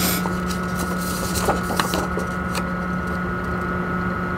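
A steady electrical-sounding hum, with a few light clicks and taps scattered through it.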